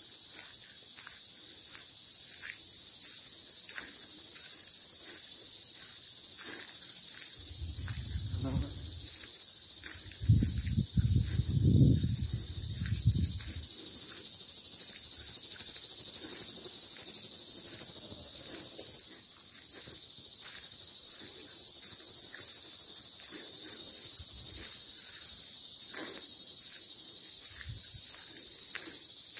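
Chorus of cicadas: a steady, high-pitched, shrill buzz that does not let up. Twice, about a third of the way in, a brief low rumble sounds underneath it.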